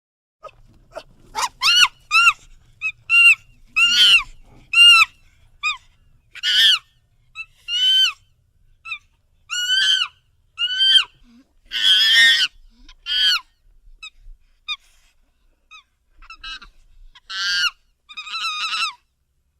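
Monkey calls: a rapid series of short, high-pitched cries, roughly one a second, each rising and then falling in pitch. A few of the calls, about twelve seconds in and again near the end, are longer and harsher.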